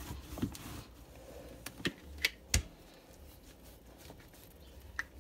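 Rolling pin working pizza dough on a wooden board: a faint low rumble as it rolls, broken by several sharp clicks and knocks, the loudest about two and a half seconds in.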